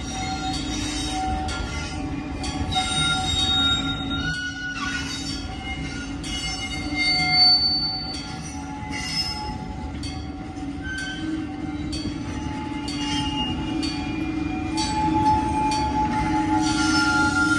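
Loaded ballast hopper wagons rolling slowly past, their wheels squealing in several thin, shifting tones over a low rumble, with scattered clanks.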